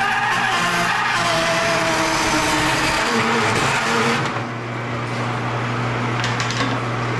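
Electric automatic wire-stripping machine running with a steady low hum while heavy copper cable feeds through, a rough noise over it that eases about four seconds in.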